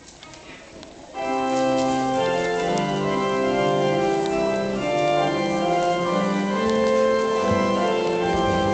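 Church organ starting to play about a second in, holding sustained chords.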